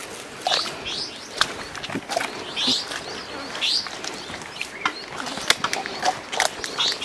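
Footsteps crunching through dry grass and twigs, with short sharp crackles throughout. Birds give short rising chirps every second or so.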